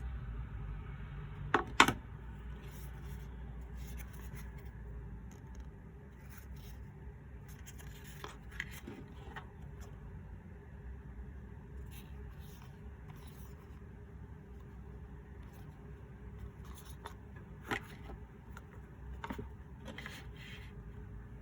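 Apple Pencil box and its packaging being handled and opened: scattered small scrapes and clicks over a low steady hum, with two sharp clicks about two seconds in as the loudest sounds.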